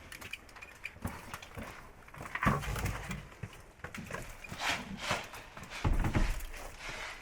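Footsteps and gear rustling as a player moves in on a hard floor: uneven knocks and thumps, with two heavier thumps about two and a half seconds in and near six seconds.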